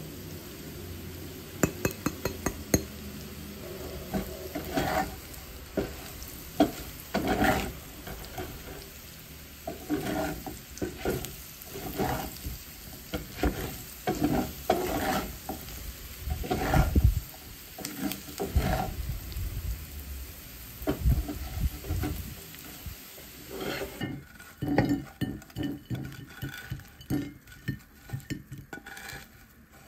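Small potatoes sizzling in a frying pan while they are stirred and tossed, with repeated short scraping strokes. Near the end, a clatter of potatoes sliding out of the pan onto a ceramic plate.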